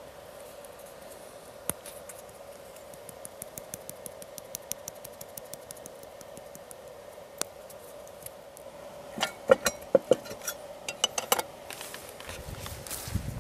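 Light ticks, then a run of sharp metallic clinks about nine to eleven seconds in, as metal utensils and camp cookware knock together, over a faint steady hum.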